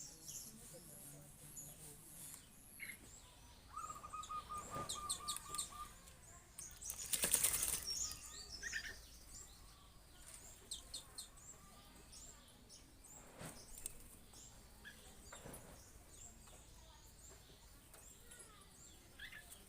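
Bird wings flapping in a loud flurry about seven seconds in, likely the coucal the video is about, with a few shorter flaps later. Small birds chirp high throughout.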